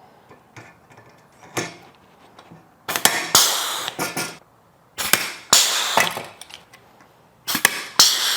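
Rivet gun setting pop rivets in aluminum hardtop parts: about four times, each a sharp snap followed by about a second of rushing noise.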